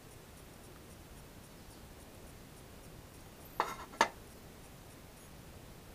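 Two light metallic clinks about half a second apart, a little past the middle, as brass rods are set down on a metal plate; otherwise faint room tone.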